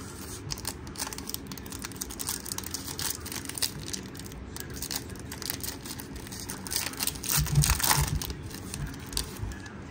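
Foil wrapper of a baseball card pack crinkling and crackling as it is torn open by hand, with a louder rustle and a low bump about three-quarters of the way through as the cards are slid out.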